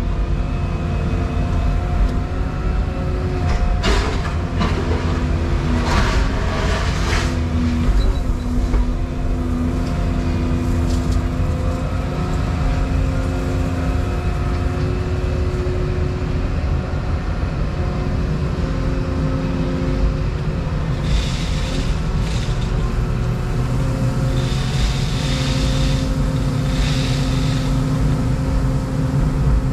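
Volvo 235EL excavator's diesel engine and hydraulics running, heard from inside the cab, with the pump note shifting as the machine moves. A few short knocks and clatters come through now and then.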